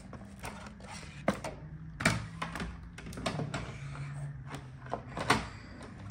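Hard plastic toy projector parts being handled and set down on a cardboard box: irregular clicks and knocks, a few sharper ones about a second apart.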